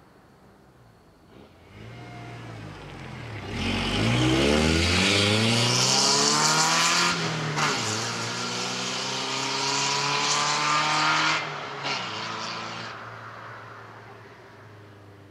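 1997 Ford Ranger's 2.3-litre four-cylinder engine, breathing through 2.25-inch pipe in place of the catalytic converter and the stock muffler, accelerating hard past. The engine note grows as the truck approaches, drops in pitch as it passes about four seconds in, dips briefly near seven seconds, and climbs again under throttle. It eases off near eleven seconds and fades into the distance.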